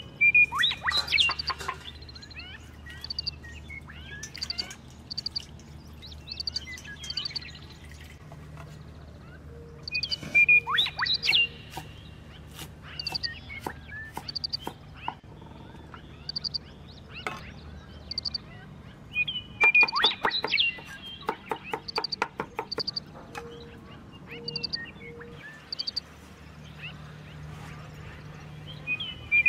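Chinese cleaver chopping on a wooden cutting board in three quick bursts of rapid strokes, slicing ginger. Between them a bird repeats a short high chirp.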